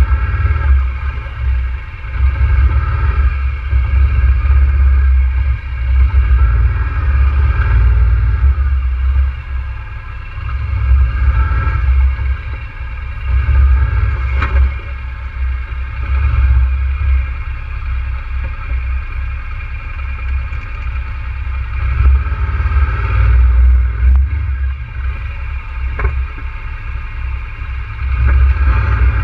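ATV engine idling steadily, with a heavy, uneven low rumble beneath it.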